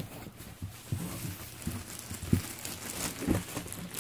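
Cardboard box flaps and a plush toy in a clear plastic bag being handled and lifted out, the plastic crinkling, with a few soft knocks along the way.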